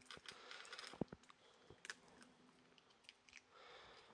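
Shiba Inu crunching dry kibble: faint, scattered crisp crunches, the sharpest about a second in.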